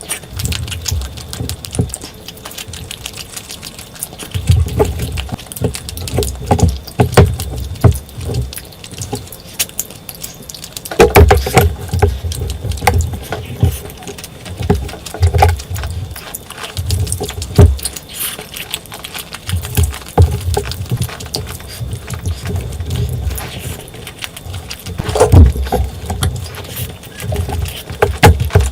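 Close-miked eating sounds: wet chewing, smacking and mouth clicks of someone eating curry and rice, coming in irregular bursts with low thumps.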